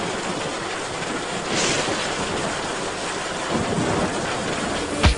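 Steady rain falling as a car drives through it, with a low rumble building toward the end.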